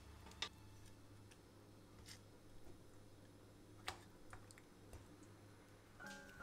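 Faint, sparse taps and clicks of a spatula against a ceramic-coated pan while chicken is coated in a cream sauce, the two sharpest about half a second and four seconds in. Soft music comes in near the end.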